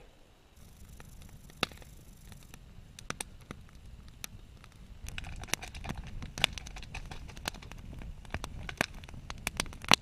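Wood campfire crackling, with scattered sharp pops that come more often from about halfway through, over a low rumble.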